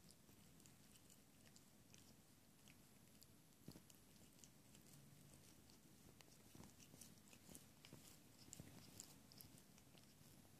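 Faint, close-up licking of a tabby cat grooming its paw: soft, irregular wet tongue clicks that come thicker in the second half.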